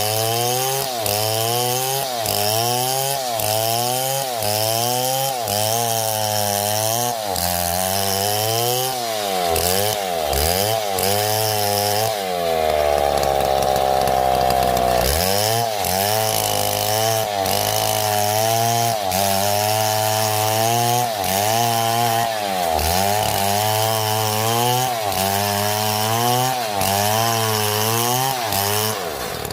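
Two-stroke chainsaw revving up and dropping back about once a second as it cuts, then held at a steady high rev for a few seconds near the middle.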